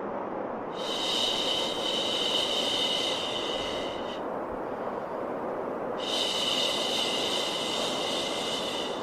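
Steady white noise for soothing a baby, with two long drawn-out "shhh" shushing sounds laid over it, each lasting about three and a half seconds.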